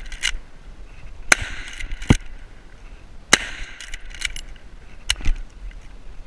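Lever-action .30-30 rifle firing three shots about two seconds apart, with a duller bang between the first two. Between the shots come the metallic clicks of the lever being worked to eject the spent case and chamber the next round.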